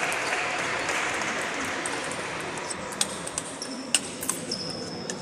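Table tennis rally: sharp clicks of the ball striking paddles and table, about five hits from about three seconds in, over the murmur of a large gym hall.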